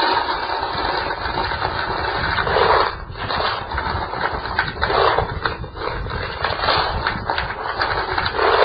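Dry pelleted beet pulp poured from a coffee can into a plastic bucket: a steady hissing rattle of falling pellets that swells with a few heavier pours.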